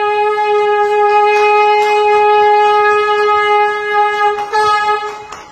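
Conch shell (sangu) blown in one long unbroken note held without a breath, steady in pitch; it wavers about four and a half seconds in and cuts off just before the end.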